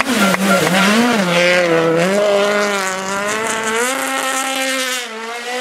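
Hyundai i20 WRC rally car's turbocharged four-cylinder engine driven hard, revving up and down through the corner for the first two seconds, then holding a steady high note with a small step up about four seconds in.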